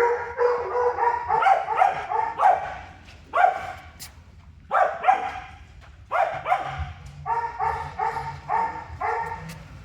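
Dog barking repeatedly in runs of quick, evenly pitched barks, about two to three a second, broken by short pauses.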